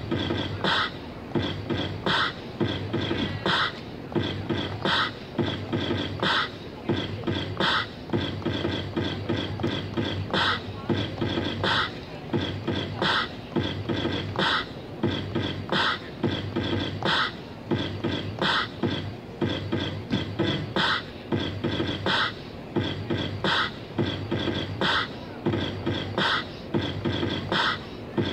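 Electronic drum-machine beat played live through small JBL portable speakers: a steady looping pattern of low kicks, sharp snare or clap hits, and quick high ticks.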